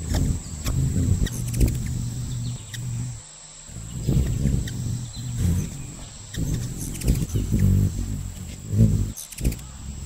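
A hummingbird's wings humming as it hovers while feeding: a low buzzing hum that swells and fades again and again, dropping out for a moment about three seconds in.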